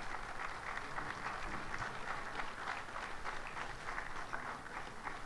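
Audience applauding steadily, many hands clapping at once, fairly quietly.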